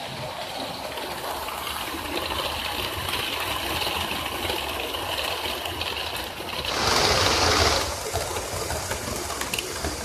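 Model train running past at track level: the steady rushing rumble of its wheels on the rails and its motor, growing as it nears, with a loud rush lasting about a second as the coaches pass closest.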